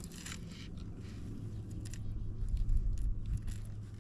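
Close handling noise: scrapes, small clicks and rustling as a small fish is unhooked and grass is pulled from the fishing line, with a few low thumps a little past halfway.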